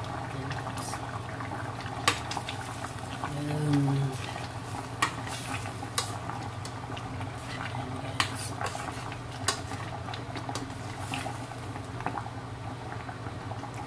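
A metal spoon stirring a pot of simmering balbacua stew, knocking sharply against the pot's side about five times, over the bubbling of the stew and a steady low hum.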